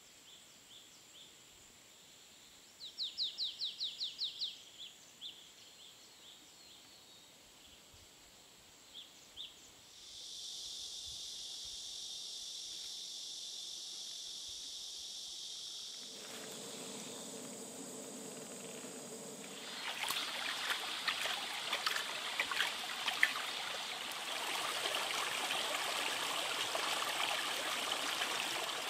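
Outdoor nature ambience that changes abruptly as if cut: birds chirping, with a short fast trill about three seconds in, then a steady high hiss from about ten seconds, then from about twenty seconds a louder, crackly rushing noise like running water.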